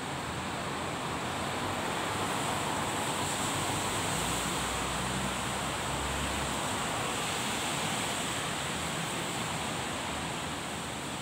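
Steady outdoor rushing noise with no distinct events. A faint low rumble joins it for a couple of seconds around the middle.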